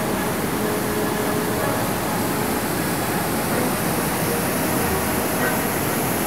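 Waterfall and the stream below it rushing: a loud, steady roar of falling water.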